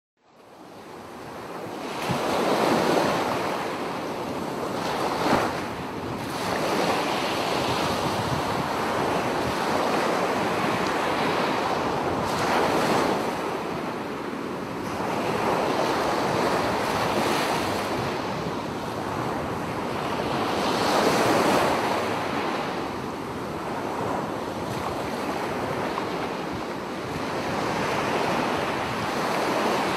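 Small sea waves breaking and washing up onto a shell-covered beach, the surf rising and falling every few seconds as each wave comes in.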